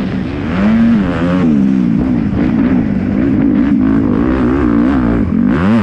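Onboard sound of a Kawasaki 250cc four-stroke single-cylinder motocross bike, its engine revving up and down as the rider works the throttle through turns and ruts. The revs dip briefly about half a second in and climb sharply near the end.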